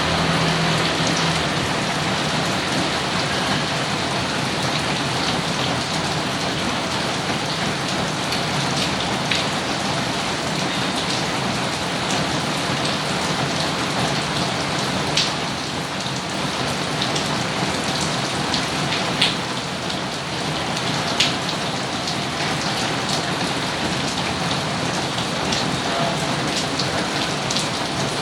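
Steady, heavy rain falling, with a few sharp, louder drop splats standing out now and then.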